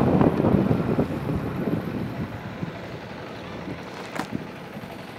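Wind buffeting a wireless clip-on microphone whose wind muffler is off: a rumbling rush that is loud at first and dies down over the first few seconds. A short click about four seconds in.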